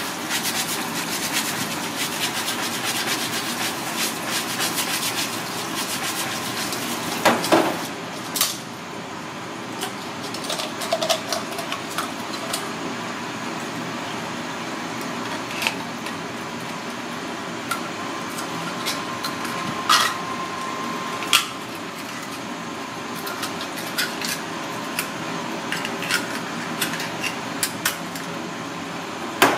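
Tap water running into a stainless steel sink, denser and louder for the first several seconds, with scattered sharp clicks and knocks of a knife blade against red clam shells as the clams are prised open.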